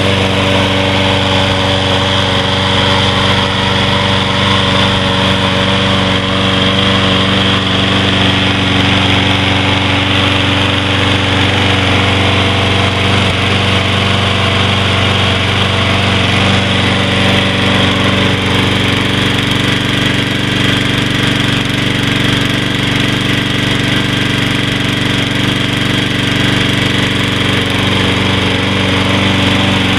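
Briggs & Stratton 675 Series single-cylinder engine on a Troy-Bilt walk-behind lawn mower running steadily at a constant speed, without surging, on a freshly cleaned carburetor.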